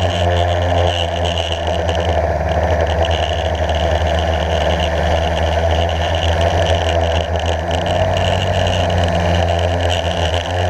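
Blade 350 QX quadcopter's four brushless motors and propellers humming steadily in flight, recorded close up by its own onboard camera, with a constant high whine above the low hum.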